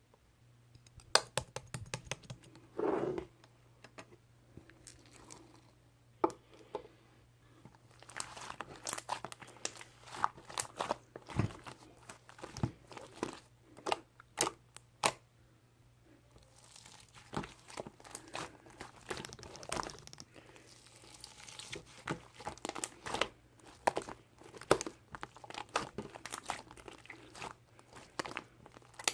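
Close-up crinkling and rustling with many sharp clicks and taps, coming in irregular bursts, over a faint steady low hum.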